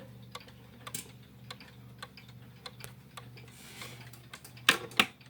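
Pendulum movement of a D&A Schoolhouse regulator wall clock ticking evenly, a little under two ticks a second, over a steady low hum. Two sharp, much louder knocks come near the end.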